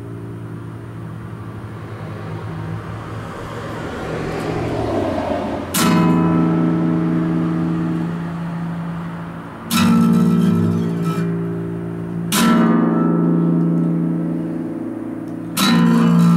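Acoustic guitar chords strummed slowly: a chord rings and fades at first, then four single strums, each left to ring out for a few seconds.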